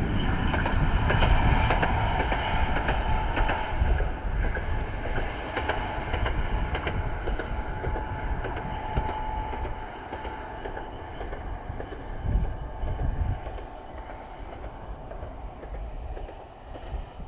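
Echizen Railway electric train running past on the track, its wheels clacking over the rail joints, then fading as it moves away. A brief steady whine sounds about halfway through.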